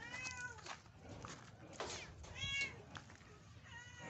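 Kitten meowing: three high cries that rise and fall, spaced about two seconds apart.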